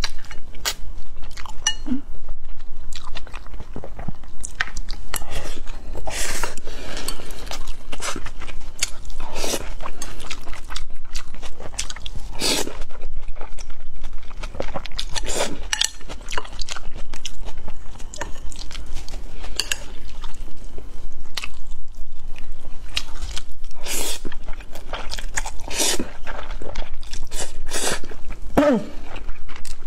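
Close-miked eating sounds: wet chewing of starchy glass noodles with minced pork and rice, broken every few seconds by louder slurps of the noodles.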